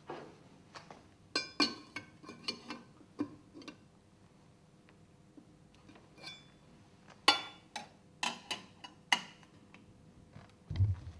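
Sharp metallic clicks and clinks of a metal hand tool and parts against a stainless steel submersible pump's motor end, in two quick clusters with a brief ring after some strikes. A dull thump comes near the end as the pump is handled on the workbench.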